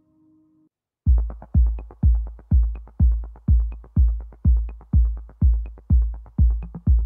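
Electronic dance music track: after a brief gap, a steady heavy kick-drum beat starts about a second in, about two beats a second, with light ticks on top.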